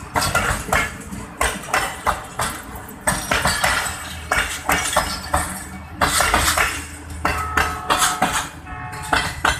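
Passenger coaches of an express train passing close by: steel wheels clattering over rail joints in a fast, irregular run of metallic clicks and knocks over a low rumble, with a brief steady tone about three-quarters of the way through.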